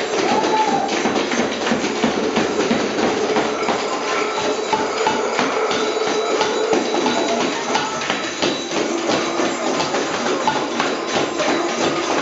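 A group playing small hand percussion together: shakers, a tambourine and mallet strikes make a dense, continuous clatter of quick irregular hits, with a faint held tone underneath for a few seconds.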